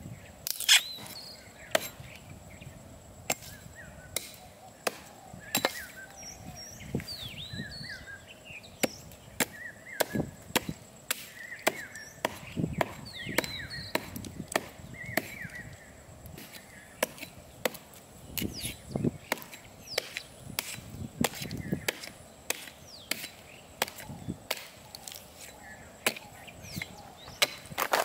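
A 600 g hatchet chopping into a standing wooden stump: a steady run of sharp chops, a little faster than one a second, splitting the wood.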